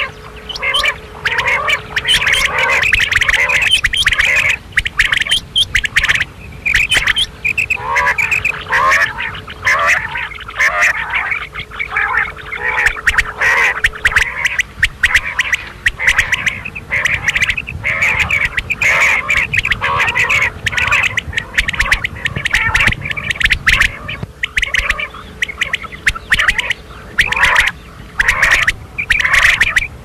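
Quails calling without a break: many overlapping, rapidly repeated chirping and squawking notes, with sharp clicks scattered throughout. A faint steady hum sits underneath for about the first half.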